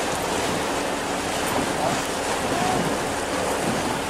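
Steady wind rushing over the microphone, with water washing past a harbour ferry under way.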